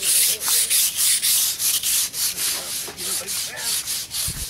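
Rapid, even scraping and brushing strokes, about four a second, as dirt and grit are rubbed off the concrete rim of a storm-drain catch basin.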